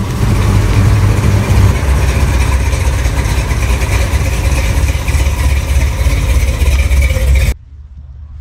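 Classic Mopar muscle car engine running with a loud, deep exhaust rumble as the car rolls slowly past at low speed. The sound cuts off abruptly about seven and a half seconds in, leaving quiet outdoor background.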